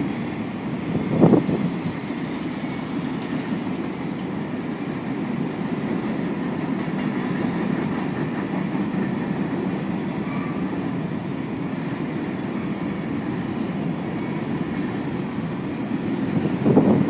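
Norfolk Southern train's railcars rolling past with a steady rumble. There are louder knocks about a second in and again near the end.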